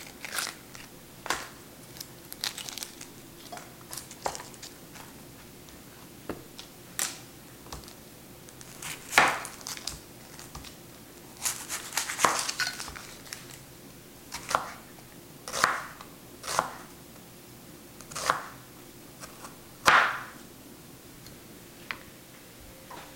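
Dry papery onion skin crinkling and tearing as an onion is peeled by hand, then a knife slicing through the onion onto a cutting board in irregular crunchy cuts.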